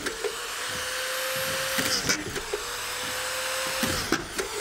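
Corded auto-feed screw gun on a stand-up extension running with a steady whine. The pitch sags with a click each time it drives a screw through the plywood subfloor into a joist, about every two seconds.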